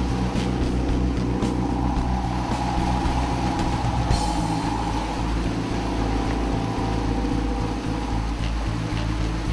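Boat engines running steadily while trolling, with a steady drone and wake water rushing alongside.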